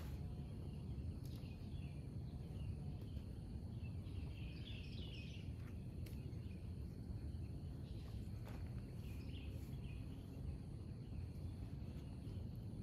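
Open-air ambience: a steady low rumble with scattered short, high chirps from birds or insects, and a faint steady high tone.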